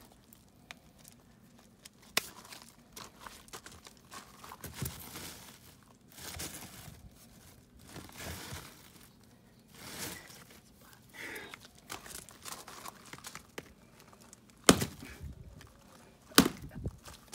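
Gravel crunching and stones clacking as rocks are handled and set down, with a few sharp stone-on-stone knocks; the loudest knock comes near the end.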